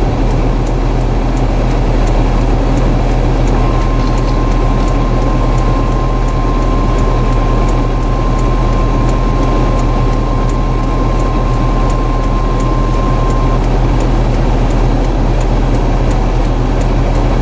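A weather-radio alert tone, one steady high beep just above 1 kHz, starting about four seconds in and holding for about ten seconds, over a loud, steady rumble of wind and vehicle noise. A light ticking repeats about one and a half times a second underneath.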